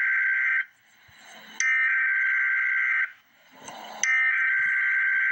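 Emergency Alert System SAME header data bursts: a harsh two-tone digital screech that comes in three blasts of about one and a half seconds each, separated by roughly one-second pauses. The first blast cuts off just under a second in, the second follows, and the third starts near the end.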